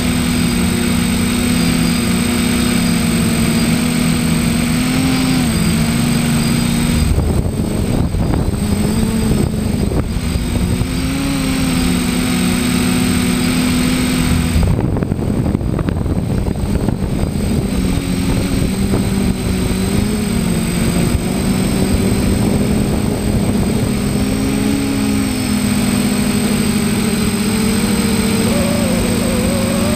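Drone's electric motors and propellers running in flight, a steady whirring hum whose pitch wavers up and down as the motors adjust speed. About a quarter of the way in and again about halfway, the hum briefly turns ragged and rushing.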